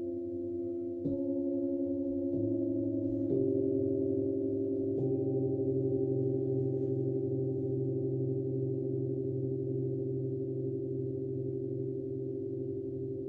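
Metal singing bowls struck one after another with a mallet, four strikes in the first five seconds. Each adds its own pitch to the chord, and the tones layer, pulse slowly against each other and keep ringing long after the last strike.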